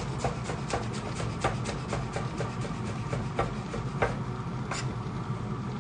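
Chef's knife dicing shallots on a bamboo cutting board: a run of quick knife taps on the wood, thinning out to a few single strikes after about three seconds, over a low steady hum.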